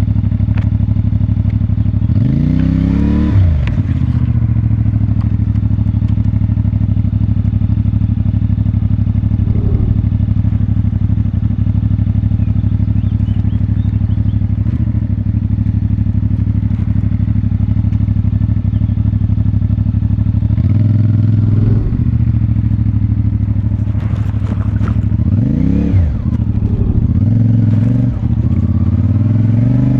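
CFMoto 450MT's parallel-twin engine with its stock exhaust, running steadily at low revs. The revs rise and fall twice, about three seconds in and again near the end.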